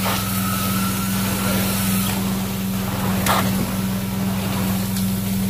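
Carpet-cleaning extraction wand drawn over wet carpet, its vacuum running with a steady low drone and a hiss of air and dirty water being sucked up. A short sharp click a little past three seconds.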